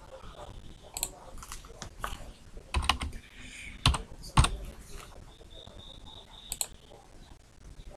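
Computer keyboard keys tapped in irregular strokes as a number is typed in, with a few harder strokes near the middle.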